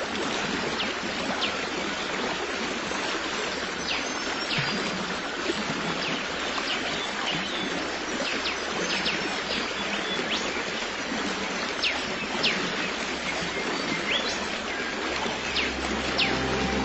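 Stream water flowing steadily, with short high bird chirps scattered over it; soft music starts to come in near the end.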